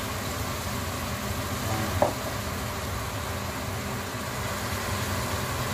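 Razor clams sizzling in a stainless steel pan with oyster sauce, over a steady low hum. A single sharp clink of a metal spoon against the pan about two seconds in.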